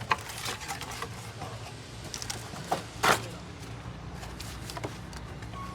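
Light clicks and knocks of tools and metal engine parts being handled, with one louder knock about three seconds in, over a low steady hum.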